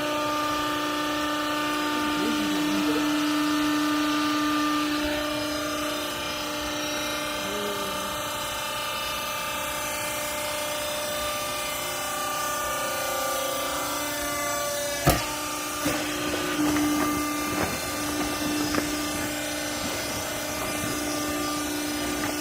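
Baling machine's motor running with a steady, multi-pitched hum. There is one sharp click about fifteen seconds in, followed by a few lighter knocks.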